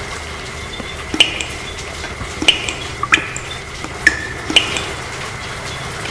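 Water drops falling one at a time and plinking onto a hard surface, about five drops a second or so apart, over a steady hiss of rain.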